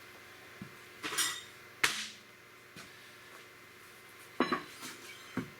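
A few sharp metallic clinks and knocks of hand tools and hydraulic cylinder parts being handled during a seal replacement: one about a second in, a louder one just under two seconds in, and three more near the end.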